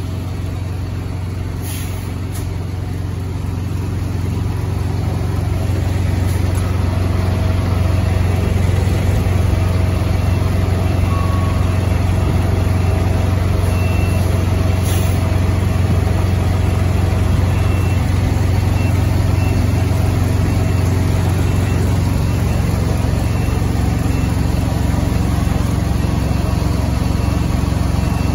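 Diesel semi-truck engine running at low idle, a steady deep rumble that grows louder over the first several seconds and then holds even.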